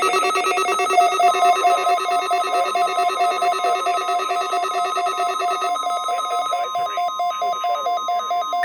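Electronic emergency alert tones: an alarm of several pitches pulsing on and off very rapidly, with a steady single tone near 1 kHz coming in about a second in. This is the NOAA Weather Radio weekly test of the warning alarm, whose standard alert tone is 1050 Hz.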